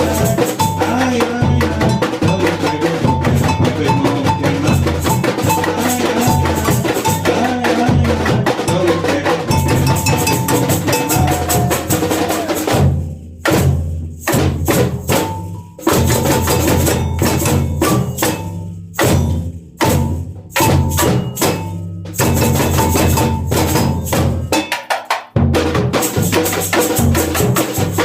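Samba bateria, a drum and percussion band, playing a full groove. About halfway through, the groove breaks into a run of separate accented hits with short gaps between them. Near the end the full groove returns.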